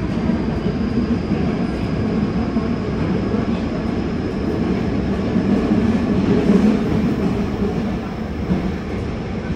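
Yokohama Municipal Subway 3000R-series train with Mitsubishi IGBT-VVVF traction running at speed, heard inside the carriage: a steady low rumble of wheels on rail with a faint high whine above it, swelling slightly about six to seven seconds in.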